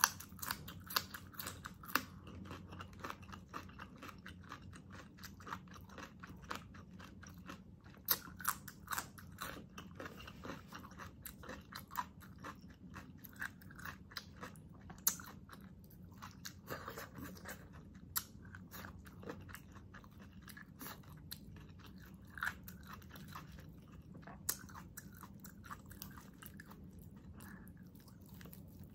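Close-miked eating: crunchy bites of a raw cucumber spear and wet, sticky chewing of braised pork hock adobo, with many small mouth clicks and smacks several times a second.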